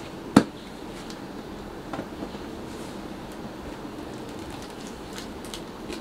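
Gloved hands working at the packing tape on a cardboard box: a sharp tap about half a second in, a softer one near two seconds, and light scratchy peeling sounds near the end, over a steady low background rumble.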